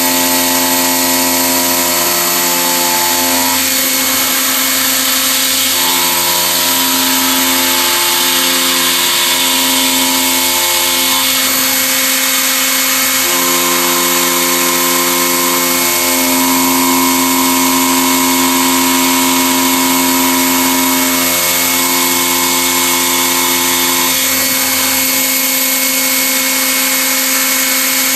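CNC milling machine chamfering the edge of a metal clamp: a steady hiss from the nozzles blowing on the cutter, over a set of machine tones that change and switch every few seconds as the axis motors move the table.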